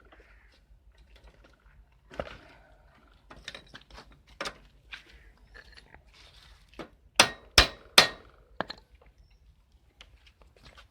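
Metal tool knocks and clanks on a bicycle pedal and crank as a new pedal is tightened on. Scattered light knocks build to three loud, sharp metallic strikes in quick succession about seven seconds in.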